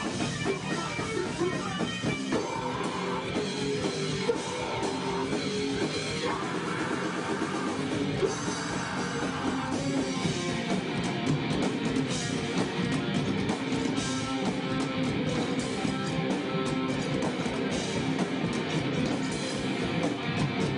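Rock band playing live: electric guitar and drum kit through the stage PA.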